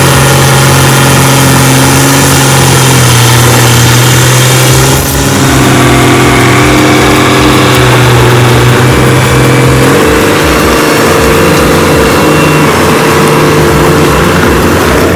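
A tractor's engine running hard under load, holding a steady pitch that shifts about five and ten seconds in.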